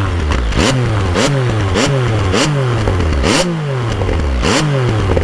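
Yamaha XSR900's inline three-cylinder engine blipped repeatedly through a MIVV Oval Carbon aftermarket exhaust, about six quick revs in a row, each falling off with a sharp pop or crack from the exhaust as flames come out of it.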